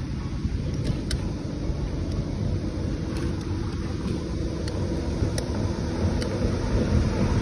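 Steady low rumble of riding a bicycle along a paved road: wind on the microphone mixed with tyre noise, with a few faint ticks.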